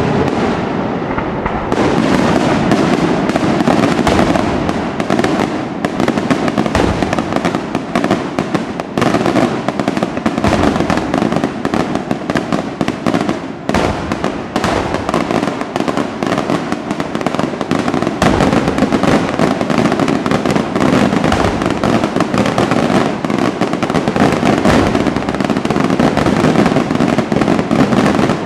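Daytime aerial fireworks: a dense, continuous barrage of bangs and crackling from many small shells bursting overhead. It thickens into an unbroken rattle about two seconds in and keeps up to the end.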